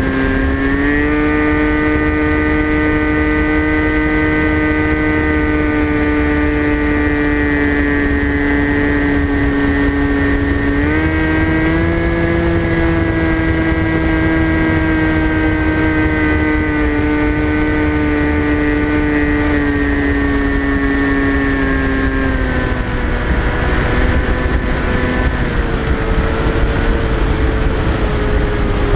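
Onboard sound of a TBS Caipirinha flying wing's electric motor and pusher propeller in flight: a steady whine that rises in pitch about a second in and again around eleven seconds, then falls away just after twenty seconds as the throttle changes. A low rush of wind on the microphone runs under it.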